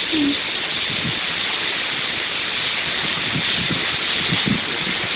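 Steady hiss, with one short, slightly falling squeak right at the start and a few soft low thumps.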